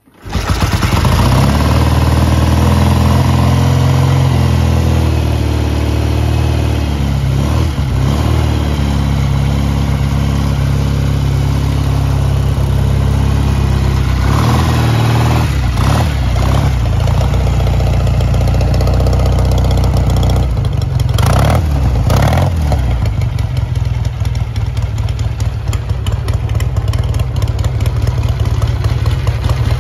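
1960 BSA A10 650 air-cooled parallel-twin engine idling steadily, with a few brief changes in its note around the middle.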